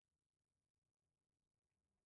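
Near silence: a gap in the podcast audio with no audible sound.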